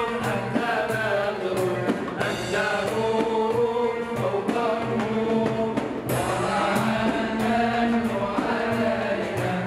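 Male group singing Islamic devotional inshad (madih praising the Prophet) in chorus, with frame drums keeping a regular beat and keyboard accompaniment.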